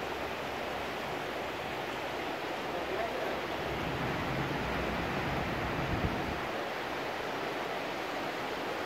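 The Swat river rushing steadily, an even, unbroken hiss of fast-flowing water, with a brief low thump about six seconds in.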